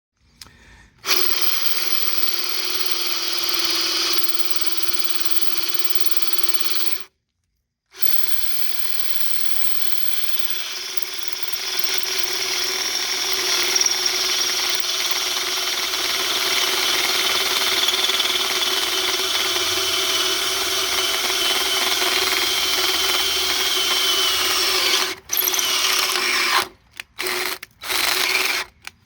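Electric drill running steadily under load, drilling holes to bolt the bell housing to its mounting plate. It cuts out for a moment about seven seconds in, then near the end is stopped and started in several short bursts.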